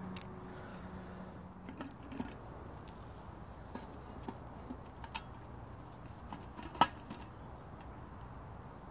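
Small twig fire crackling in a perforated metal hobo stove, with scattered clicks and clinks as a steel pot with a wire bail handle is set on it and its lid adjusted; one sharp metallic click about two-thirds of the way through is the loudest sound.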